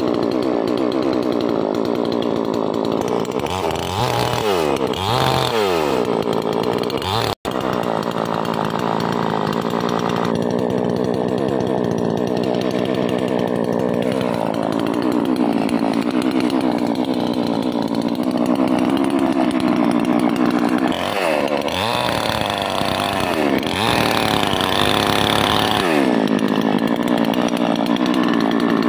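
Two-stroke chainsaw running at high revs while cutting into a tree trunk, its engine note dipping and climbing again in a couple of sweeps. The sound drops out for an instant about seven seconds in.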